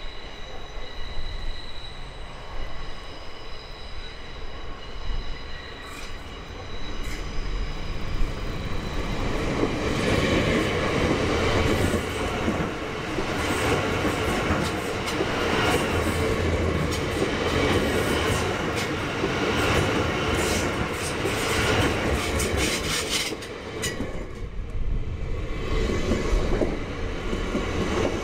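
A High Capacity Metro Train (electric multiple unit) approaches with a steady high whine, then passes close by from about ten seconds in as a loud rumble with the wheels clicking rapidly over the track.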